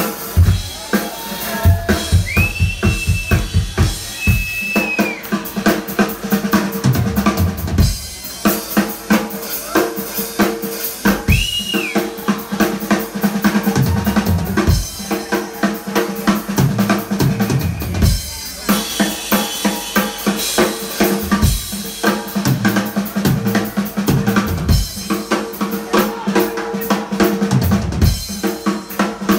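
Live blues band playing: a drum kit with busy kick, snare and rimshots drives the music under electric guitars. A few high, held lead notes stand out briefly in the first half.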